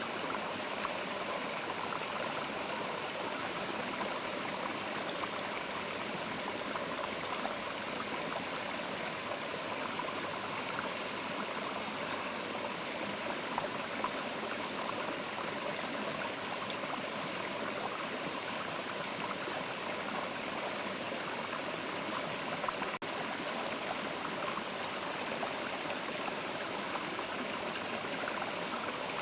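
Mountain river rushing and splashing over stones in a steady, even flow. A faint, thin, high sound rides above the water in the middle stretch.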